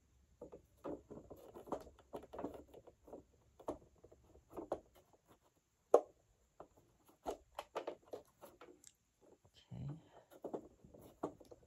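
Plastic parts of a Eureka The Boss upright vacuum being handled and fitted together: irregular small clicks, taps and rustling, with one sharp click about six seconds in.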